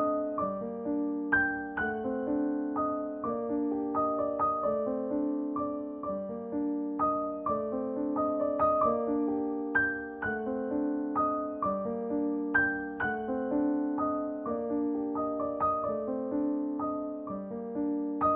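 Background piano music: a steady, unhurried run of struck notes that ring and fade one into the next.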